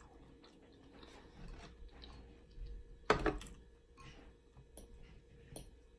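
Quiet eating sounds: soft clicks of a utensil in a glass bowl of sauce and mouth noises, with one louder short mouth sound about three seconds in.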